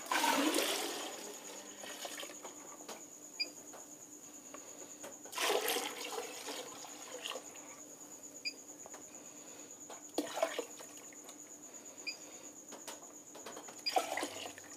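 DP oil (diethyl phthalate solvent) being poured from a plastic bucket into perfume in another plastic bucket, a liquid rush that comes in several pours: the loudest at the start, then shorter ones about five, ten and fourteen seconds in.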